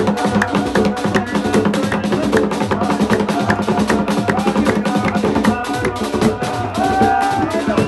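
Fast, dense drumming with voices chanting over it: music for a zikr dance.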